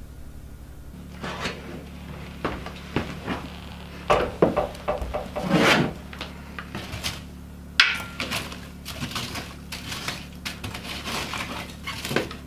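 Irregular knocks, clicks and rustling as objects are handled and set down on wooden surfaces, loudest about four to six seconds in, over a steady low hum.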